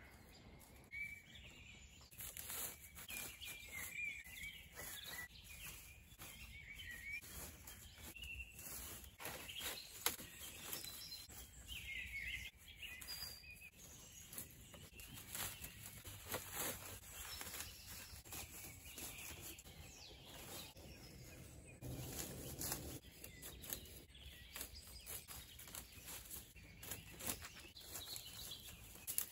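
Small birds chirping now and then, over a steady run of short, faint clicks and taps, with one sharper knock about ten seconds in.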